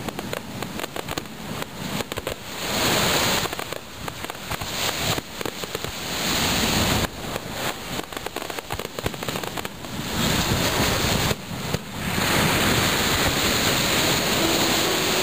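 Aerial fireworks display: shells bursting in a rapid string of bangs and crackles.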